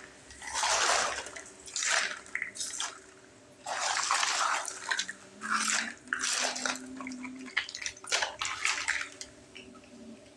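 Water pouring and splashing into a miniature toy-kitchen sink in a series of short, irregular spurts.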